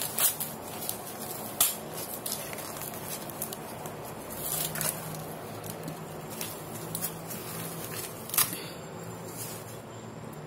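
Fresh ear of corn being husked by hand: the green husk leaves rustle and crackle as they are pulled back and torn away, with a few sharp snaps, the loudest about a second and a half in and again near the end.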